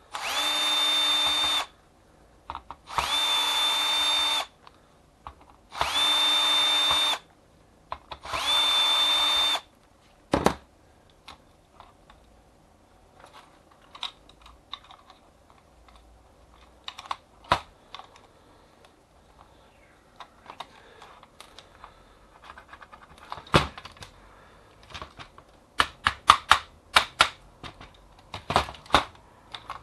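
Bosch cordless drill-driver running in four short bursts of about a second and a half each, on screws in a copier fuser unit's plastic housing, its motor whine rising at each start. After that come scattered clicks and knocks of small parts and tools being handled, sharpest near the end.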